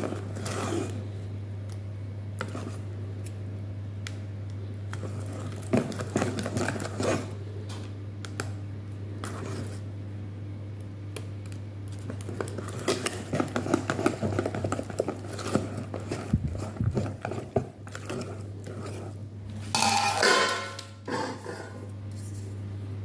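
Wire balloon whisk beating cake batter in a stainless steel bowl: quick, irregular clicks and scrapes of the wires against the metal, over a steady low hum. About three seconds before the end comes a louder clatter as a metal springform pan is handled.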